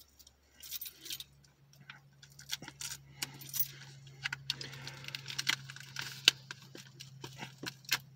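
A bunch of keys jangling and scraping in quick, irregular clicks as they are used to cut open the plastic wrap on a Blu-ray case.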